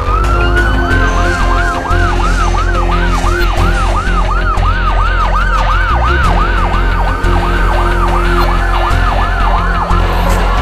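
Emergency vehicle sirens: one in a fast yelp of about three cycles a second, over a second siren that wails slowly, rising near the start, holding, and rising again near the end.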